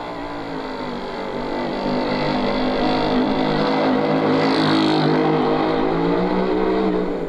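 A small vehicle's motor humming steadily, growing louder about two seconds in as it approaches and passes, then easing off near the end.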